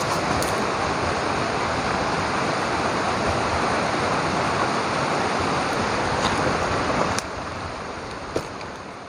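Steady rushing of water, dropping in level about seven seconds in and fading toward the end.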